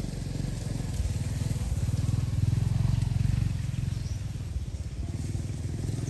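A small engine running with a low, pulsing rumble that grows louder toward the middle and then eases off.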